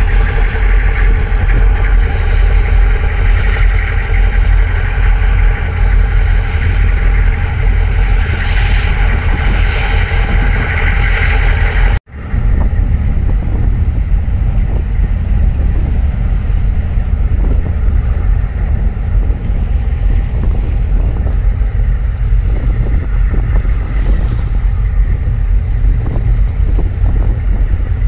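Wind rumbling on the microphone over the drone of tugboat and ship diesel engines, with a steady engine hum most prominent at first. The sound cuts out for an instant about twelve seconds in, then carries on as wind and engine rumble.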